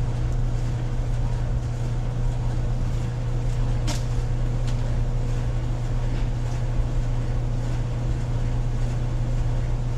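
GE Spacemaker stacked dryer running with a steady hum as its drum turns, no longer squeaking now that the drum bearing has been replaced.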